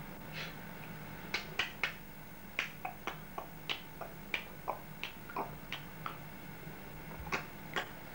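A quick, irregular run of about twenty short, sharp clicks, beginning a little over a second in, over a faint steady hum.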